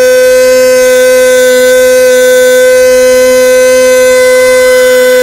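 A football radio commentator's long held goal cry, 'golooo', sustained on one unwavering loud note. A rising tone comes in faintly near the end.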